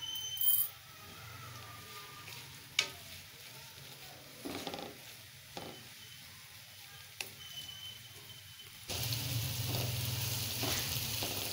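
Sliced onions frying in hot oil in a wok, stirred with a slotted spoon that scrapes and taps the pan now and then. The sizzle is soft at first and turns into a loud, steady sizzle about nine seconds in, with the flame turned up.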